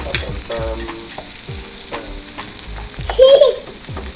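Carrots and onions frying in hot oil, sizzling steadily, while a spoon stirs and scrapes the pot. A brief, louder squeal about three seconds in.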